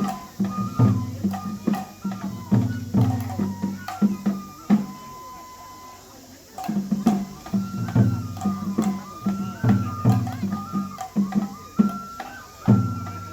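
Japanese festival hayashi music for a lion dance: taiko drum strokes in uneven groups, each ringing on, under a high held melody line. The drums drop out for about a second and a half around five seconds in while the high line carries on.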